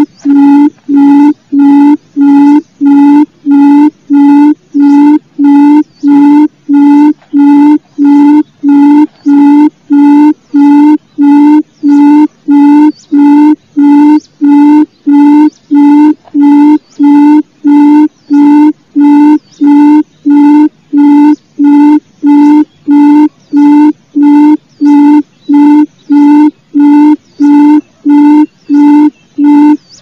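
Barred buttonquail (gemak) call: short, low hooting notes, all at the same pitch, repeated steadily a little under two times a second without pause.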